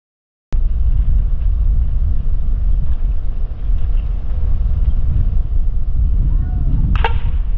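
Wind rumbling steadily on the microphone, then near the end one sharp ping of a softball bat striking the pitched ball.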